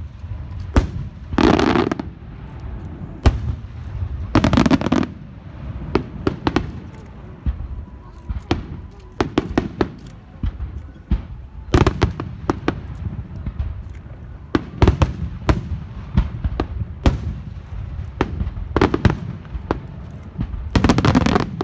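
Fireworks going off: irregular sharp bangs, some in quick clusters, over a constant low rumble. There are a few longer noisy bursts of about half a second, near the start, around four seconds in and just before the end.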